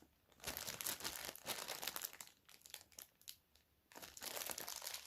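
Crinkling and rustling of packaging as a phone's original headphones are handled, in three faint stretches with short pauses between them.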